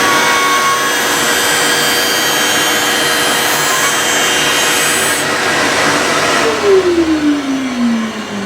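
A steel figure skate blade ground on a sharpening machine's spinning wheel, a steady grinding hiss; about five seconds in the grinding stops, and near the end the machine's motor winds down, its hum falling steadily in pitch as it is switched off.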